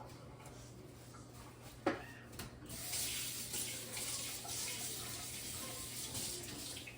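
A single knock, then a kitchen tap turned on, its water running steadily into a sink from a little under three seconds in.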